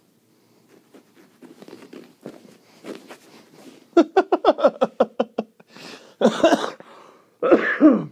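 Prairie dog calling: a rapid run of short barking chirps, each dropping in pitch, about seven a second, then two longer, harsher calls near the end.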